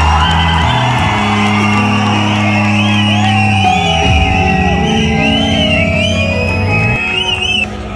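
Loud background music with long held bass notes under a high, wavering melody line.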